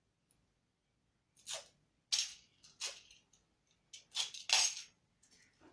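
Packing material being handled: about six short rustling, scraping bursts, each a fraction of a second, starting about a second and a half in.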